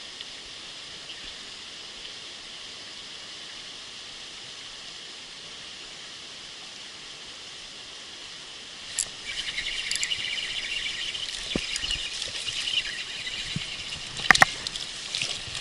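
A steady hiss of water, then from about nine seconds in, louder uneven splashing and trickling water with a few sharp clicks.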